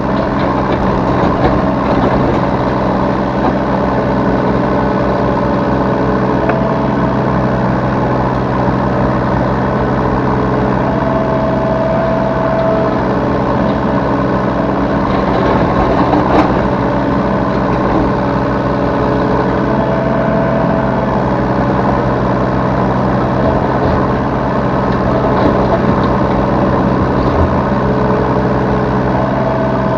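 Yanmar B3 Sigma 3-tonne mini excavator's diesel engine running steadily, heard from the operator's seat, with a higher tone coming and going a few times as the machine works.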